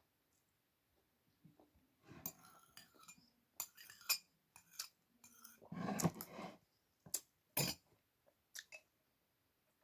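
Cutlery clinking and scraping against a plate while eating, a run of short clinks starting about two seconds in, with a louder, fuller clatter about six seconds in.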